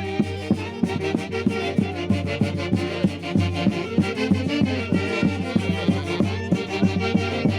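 A band playing Santiago, the Huancayo region's festival music: melody instruments over a fast, steady beat.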